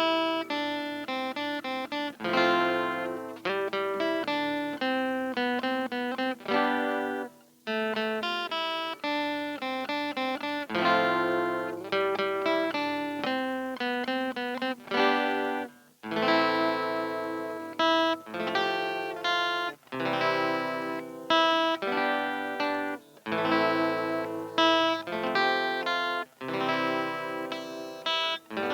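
Solo guitar playing the Am–F–C–G chord progression in a quick run of picked notes, with brief gaps where the chords change.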